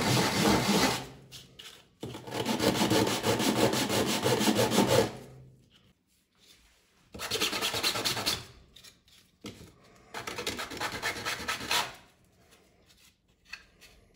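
3D-printed plastic shell parts rubbed back and forth on a flat sheet of sandpaper, a rough scratchy stroking in about four bouts with short pauses between, the last bout quieter. The edges are being sanded flat so the printed parts fit together.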